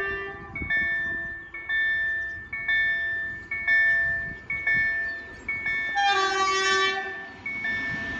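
KLD-4103 level-crossing warning bell ringing, about one strike a second, each strike ringing on before the next. About six seconds in, an approaching train sounds its horn for about a second.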